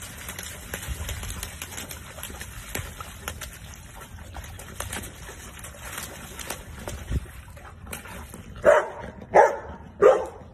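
A dog splashing and pawing in a muddy puddle, with water sloshing and slapping. Near the end it gives three loud barks in quick succession.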